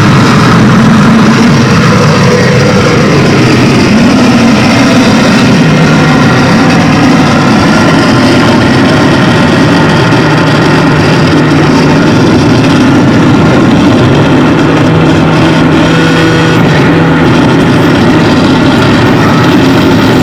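Harsh noise played live on electronics: a loud, dense, distorted wall of noise that holds steady, with low droning tones coming and going within it.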